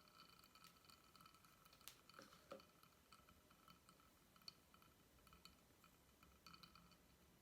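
Near silence with a few faint clicks and squishes of slime being handled, the sharpest about two seconds in, around two and a half seconds in, and about four and a half seconds in.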